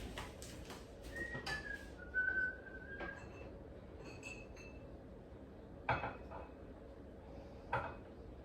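Kitchen handling sounds: a thin whistle-like squeak that steps down in pitch over about two seconds, then two sharp clinks of glass or kitchenware, one about six seconds in and one near the end.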